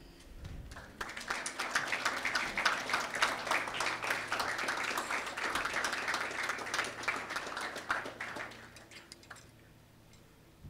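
Audience clapping, building up over the first second and dying away about nine seconds in.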